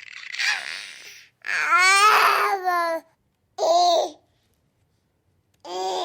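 Recorded baby sound effect: an infant fussing, with a breathy whimper, then a longer cry-like wail and two short whimpering calls with pauses between.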